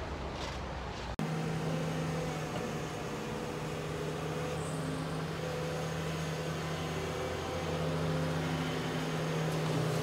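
Diesel engine of a Doosan wheeled excavator running steadily as it digs and loads a dump truck, a low engine hum. There is a short break about a second in, after which the hum carries on.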